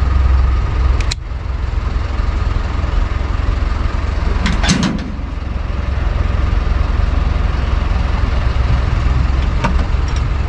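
Mobile fuel delivery truck running steadily while its pump dispenses petrol into a car: a constant low hum with a faint steady whine. There is a sharp click about a second in and a short cluster of clicks near the middle.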